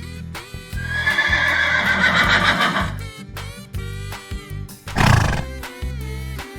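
A horse neighing: one long whinny starting about a second in, then a short, loud burst of noise about five seconds in.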